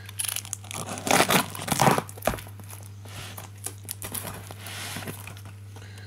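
Cardboard box packaging being handled and pulled at: several bursts of crinkling and tearing in the first two seconds, a short knock a little after, then softer rustling.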